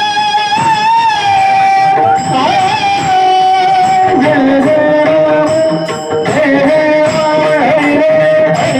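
Devotional bhajan music: a sustained, gliding melody line of long held notes over pakhawaj drum strokes.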